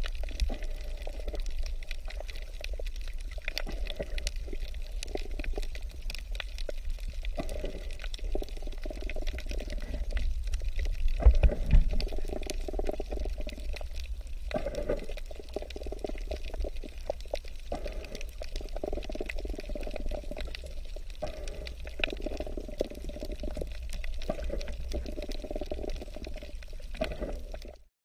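Underwater ambience on a coral reef: muffled water movement with a steady low rumble and many scattered crackling clicks, swelling briefly about halfway through.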